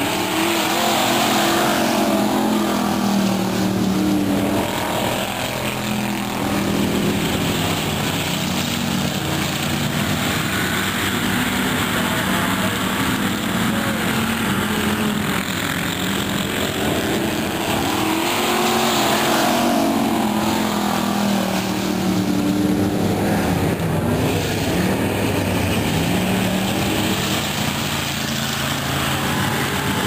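Several dirt-track pure stock race cars racing in a pack, their engines under hard throttle, rising and falling in pitch as the cars go around. The pack swells louder as it passes about a second in and again around twenty seconds in.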